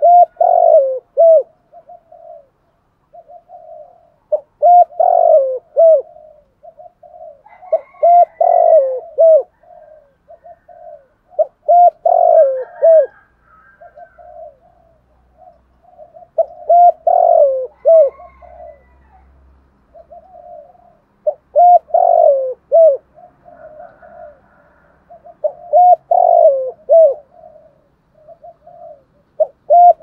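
Spotted dove cooing its calling song: a phrase of a few deep, loud coos repeated about every four seconds, with softer coos in between. It is a decoy bird's call to bring in wild doves.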